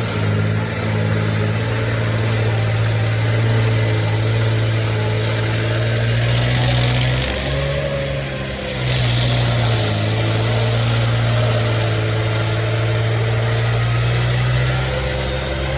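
Large stump grinder's engine running steadily at high load, its tone breaking and dipping briefly about halfway through before picking back up.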